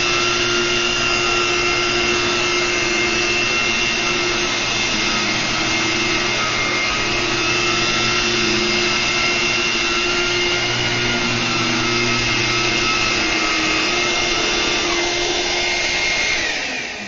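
Electrolux upright vacuum cleaner running steadily over carpet, a loud rushing of air with a steady motor whine. Near the end it is switched off and the whine falls as the motor spins down.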